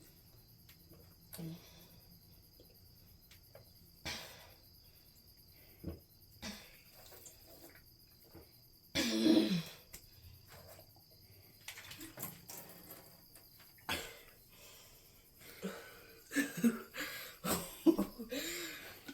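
A person coughing and catching their breath now and then while chugging a big soda: short, scattered throaty sounds, the loudest about nine seconds in and several more close together near the end. Crickets chirp steadily behind.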